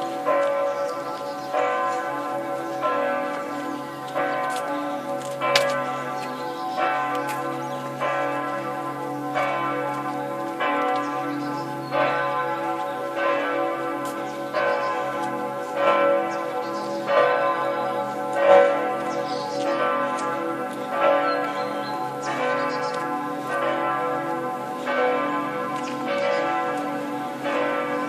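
Two large swinging church bells, the cathedral's middle bell and weekday bell, ringing together. Their strokes fall about once a second, and the bells' hum carries on between strokes.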